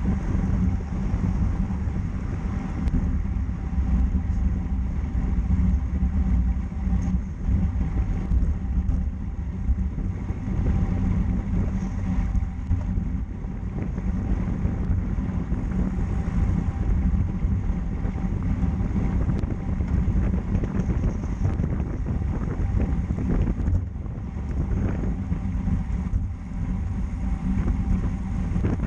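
Steady wind rushing over the microphone with a continuous low rumble, as from a road bike ridden at speed.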